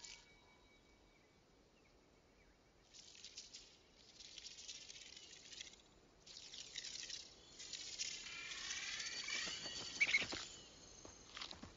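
Rattlesnake rattling in several buzzing bursts that grow longer and louder, with a short sharp sound about ten seconds in.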